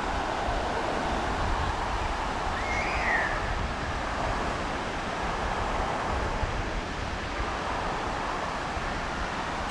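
Steady downpour of rain with wind rumble on the microphone; a single short chirp-like squeak about three seconds in.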